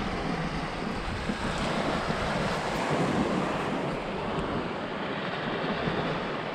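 Ocean surf washing up a sandy beach, with wind noise on the microphone; the wash swells a little around the middle.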